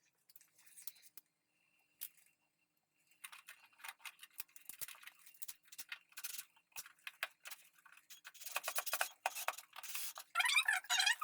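Faint scattered clicks and rustles of hands handling small objects, then a squeaky, wavering pitched sound near the end.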